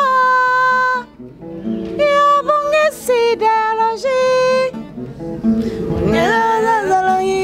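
A woman singing a slow, melodic song, holding long notes with short breaks between phrases, over a steady guitar accompaniment. Near the end the voice slides and wavers in pitch.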